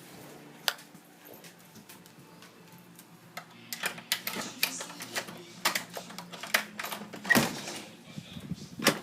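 A single sharp click, then from about three seconds in a quick, irregular run of sharp clicks and taps over a faint low hum.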